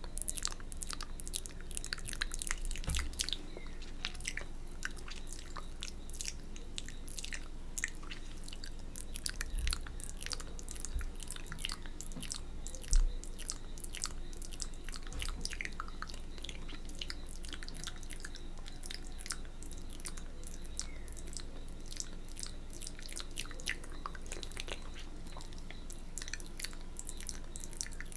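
Close-miked wet mouth sounds of ASMR spit painting: a steady patter of tongue clicks, licks and spit smacks. One louder, soft thump comes about 13 seconds in.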